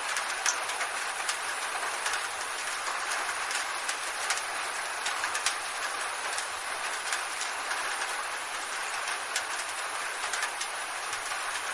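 Rain falling on a tin roof: a steady hiss with many sharp, irregular ticks of drops striking the metal.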